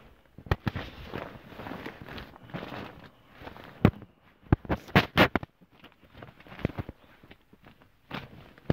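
Handling noise as presents, bags and wrapping paper are moved about and packed away: irregular rustling with sharp knocks and clicks, several loud ones bunched a little past halfway.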